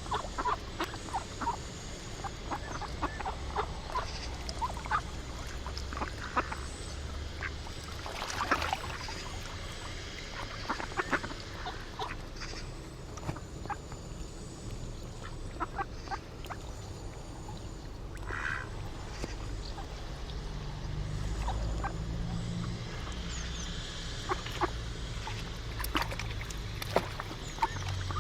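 Ducks quacking in short scattered calls, with a low rumble swelling about twenty seconds in.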